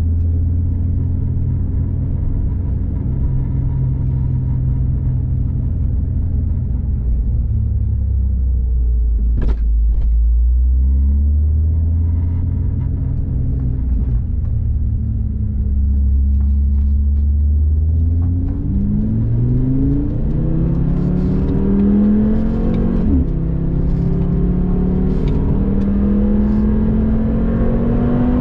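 Audi TT RS's turbocharged five-cylinder engine heard through the cabin, running at low revs at walking-to-jogging pace, with one brief knock about ten seconds in. About two-thirds of the way through it accelerates hard, the note rising through the revs, dropping at an upshift and climbing again.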